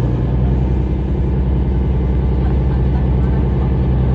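A diesel train engine running steadily, a loud low hum with a fluttering rumble over it.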